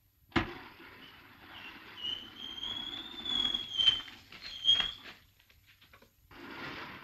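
A hidden door in a rock wall opening: a sudden thud as it starts, then a scraping with a thin high squeal that glides slowly for a few seconds. Two sharp clacks come about four and five seconds in.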